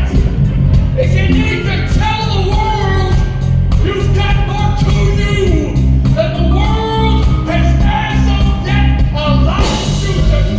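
Live band playing loudly with a steady drum beat and bass, and a voice singing over it.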